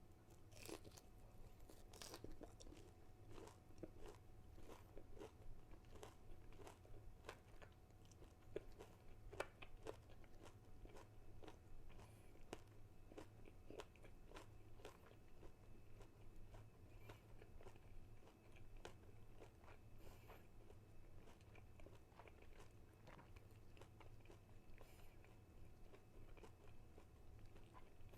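Crunchy fried chicken nuggets being bitten and chewed close to the microphone: a run of crisp crunches and mouth sounds, coming thickest in the first half.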